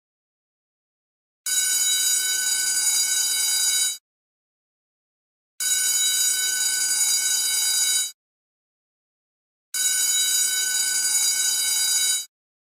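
School bell ringing in three bursts of about two and a half seconds each, with short silent gaps between them, a steady shrill ring.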